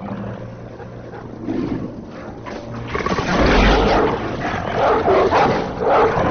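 Monster dogs snarling and growling as film creature sound effects. The sound swells to a loud, dense snarl about three seconds in, over a deep rumble.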